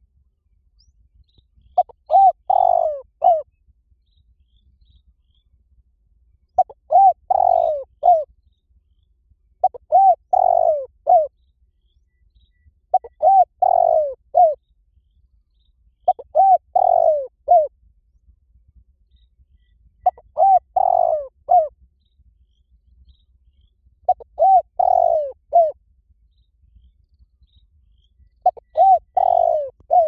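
Spotted dove cooing: a short phrase of a few coo notes, the middle one longest and loudest, repeated about eight times, one phrase every three to four seconds.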